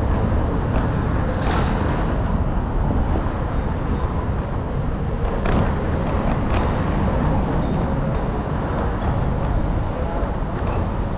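City street noise: a steady rumble of road traffic, with a few short clicks over it.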